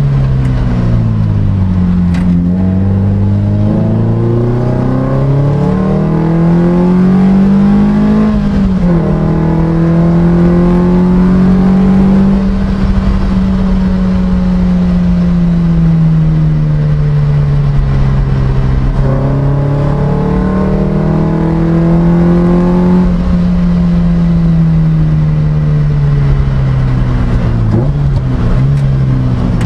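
Engine of a Lotus Type 25 single-seater heard onboard, rising and falling in pitch through the gears, with several gear changes where the pitch climbs and then drops back. Under it runs a steady low rumble of wind and road noise.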